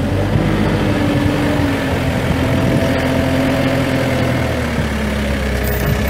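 Case 4.5-litre four-cylinder diesel engine of a Case 580 Super M backhoe running steadily at idle.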